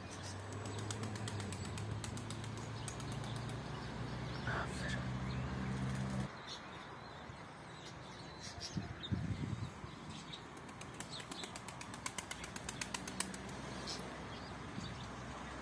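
Pigeon wings flapping, heard as quick runs of clicks and claps. A steady low hum runs underneath for the first six seconds and cuts off suddenly.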